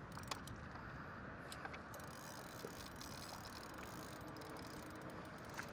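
Faint, irregular mechanical clicking from a fishing reel as a hooked fish pulls against the line, over a steady hiss of water and wind.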